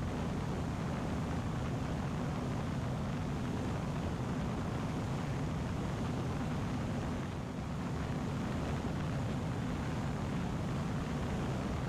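Viking 130 four-cylinder aero engine and propeller of a Zenith 750 Cruzer light aircraft in steady cruise, heard on board as an even low drone with wind noise over it.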